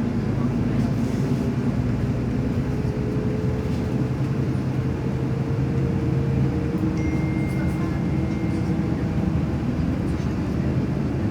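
Steady low rumble of a moving vehicle, with a constant hum; a thin high tone sounds for a second or two past the middle.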